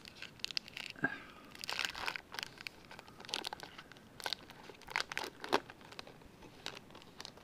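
A baseball card pack's wrapper being torn open and crinkled by hand: a run of irregular crackles and rips.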